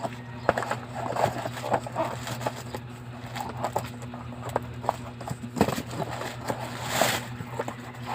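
Scattered clicks and rustles of a parcel's packaging being handled and opened, over a steady low hum, with a louder rustle about seven seconds in.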